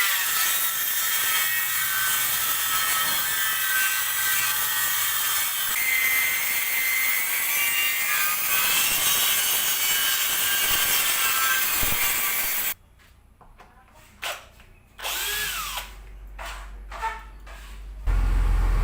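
A power tool running on wood with a steady whine that shifts slightly in pitch. It cuts off suddenly about twelve seconds in, a few scattered knocks follow, and near the end a loud low-pitched machine starts.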